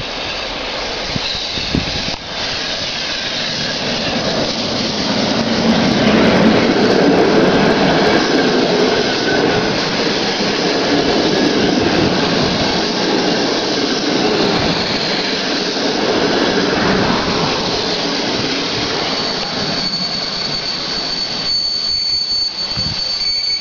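EP07 electric locomotive and its passenger coaches rolling past into the station, a loud, steady rumble of wheels on rail that builds to its loudest about six seconds in. From about nineteen seconds a steady high-pitched brake squeal sets in as the train slows.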